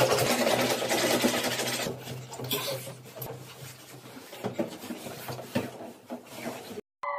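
Rapid scratching and rubbing on the fabric of a folding camp cot, loud and continuous for about two seconds, then fainter, scattered scratches and rustles.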